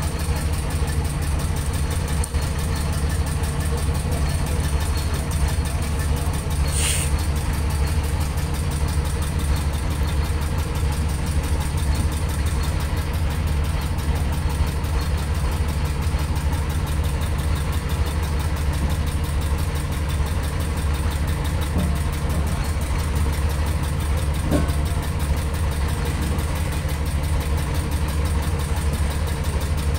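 Boat engine idling steadily with a fast, even low throb. A brief high squeal comes about seven seconds in.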